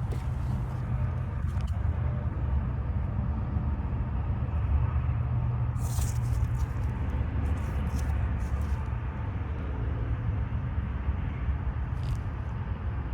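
Steady low rumble with a few brief light clicks, about 6, 8 and 12 seconds in.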